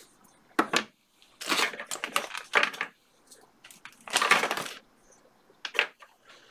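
Hands working on a 486 PC's memory modules: short bursts of scraping and crackling handling noise, four in all, with quiet gaps between them.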